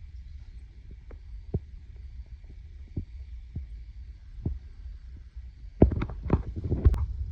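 Footsteps through a tall-grass field, with separate soft thuds under a steady low rumble of wind on the microphone, and a burst of louder rustling and thumping near the end.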